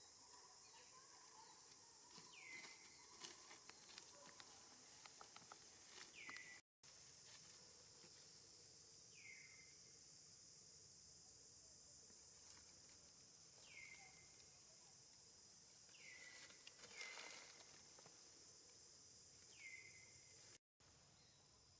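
Faint, steady high-pitched drone of insects such as cicadas or crickets. A short falling chirp repeats about every three to four seconds, with scattered light rustles and clicks.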